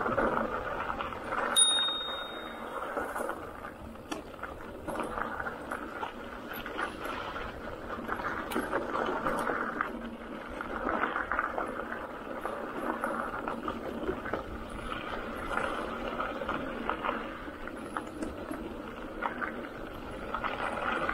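Steady rolling and rattling noise of a bicycle ride, with one short ring of a bicycle bell about one and a half seconds in.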